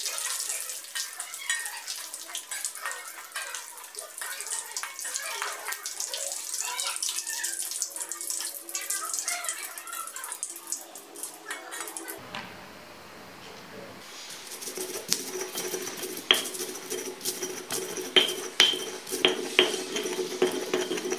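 Krupuk crackers frying in hot oil in a wok, a dense sizzle and crackle with the clink of a metal fork turning them. After a cut about twelve seconds in, a stone pestle grinds a green paste in a stone mortar, scraping with sharp knocks.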